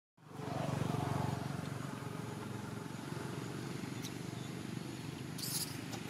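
Steady low rumble of an idling engine with a fast, even flutter, and a few short high chirps about four seconds in and near the end.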